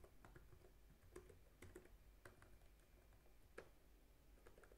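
Faint typing on a computer keyboard: a scattering of separate, irregularly spaced keystrokes over quiet room tone, one a little louder about three and a half seconds in.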